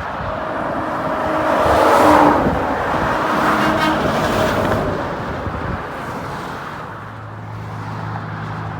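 Highway traffic: a vehicle passes close by, its rushing tyre and engine noise swelling to a peak about two seconds in, then fading. A low, steady engine drone comes in near the end.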